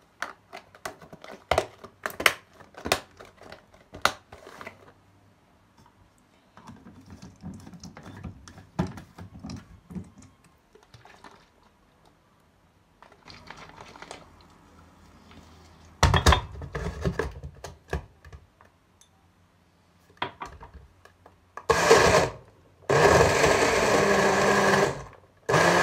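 Frozen strawberry pieces click and knock as they drop into a plastic blender bottle, with a louder clatter partway through. Near the end, a personal bottle blender runs in short pulses, first briefly and then for about two seconds, blending milk with frozen strawberries.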